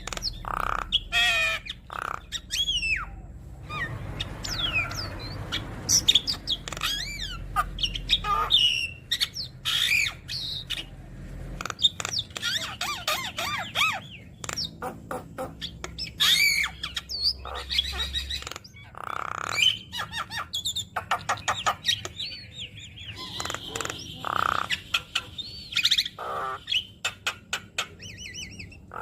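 Javan myna (jalak kebo) singing a long, varied song: squawks, rising and falling whistles and quick runs of clicking notes, with many mimicked phrases mixed in.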